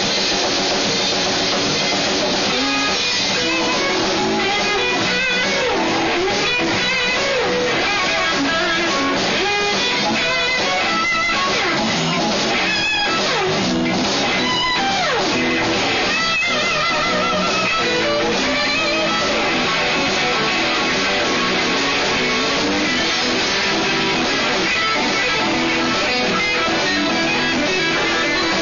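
Live electric blues band playing a blues shuffle: electric guitars over bass guitar and drums, with bent, gliding guitar notes in the middle of the passage.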